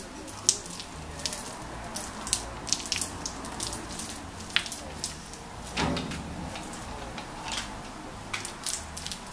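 Spiked uncapping roller rolled over a honeycomb frame, its spikes piercing the wax cappings with an irregular crackle of small clicks. One duller knock about six seconds in.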